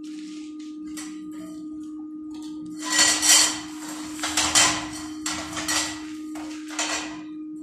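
Lengths of square steel tubing clattering and scraping against each other as they are shifted about a welded frame, in four loud metallic bursts starting about three seconds in, over a steady hum.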